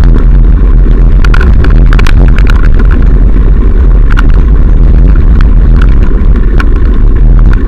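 Heavy wind buffeting on a moving camera's microphone, a loud steady rumble, with irregular clicks and rattles from the camera jolting over the rough gravel path.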